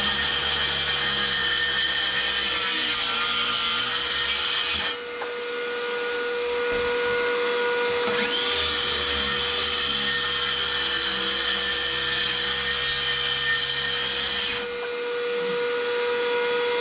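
A power tool cutting a hole into the wall runs in two long bouts. It stops about five seconds in and starts again with a rising whine about three seconds later, then stops near the end. Under it a vacuum cleaner runs with a steady whine throughout.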